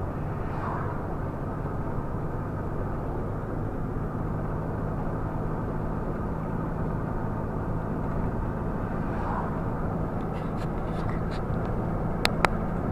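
Steady engine and road noise of a vehicle driving, with a low, even hum. A few sharp clicks come near the end.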